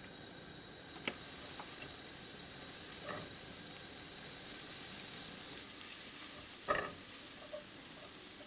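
Butter melting and sizzling in a hot pan: a steady hiss that sets in about a second in, with a few light knocks as a silicone spatula stirs it around.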